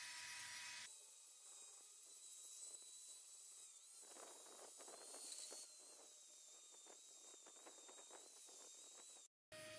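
Angle grinder with an abrasive disc running, its motor whining steadily as it grinds rust off the steel head of a grub hoe. Rough scraping of the disc on the metal from about four seconds in, and the sound cuts out briefly near the end.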